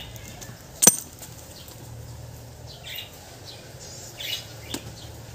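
A sharp click of metal parts or tools being handled about a second in, then a fainter tap near the end, with a few faint high chirps in between.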